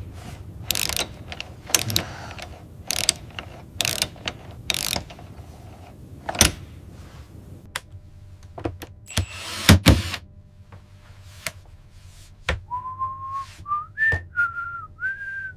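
Irregular clicks and clanks of hand tools being worked, with no words. Near the end a person whistles a few held notes that step up in pitch.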